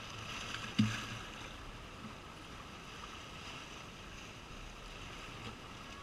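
Small sea waves washing and sloshing over shoreline rocks, a steady hiss of water, with a brief low thump a little under a second in.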